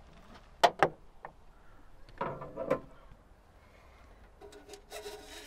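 Iveco Daily 4x4's bonnet release clicking twice sharply, then clunks as the bonnet is unlatched and raised, and a short scraping rustle near the end as hands work in the engine bay before an oil check.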